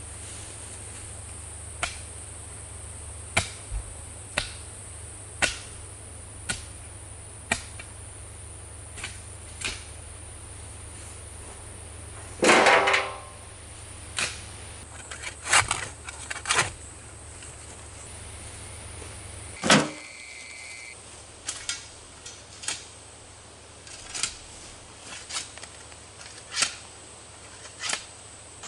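A hand tool digging and scooping soil: short sharp knocks and scrapes at irregular intervals of about a second, with a longer, louder scrape about halfway through.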